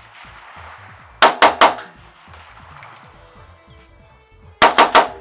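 SKS semi-automatic rifle fired in quick strings of three shots, about a second in and again near the end, with the shots in each string a fifth of a second apart.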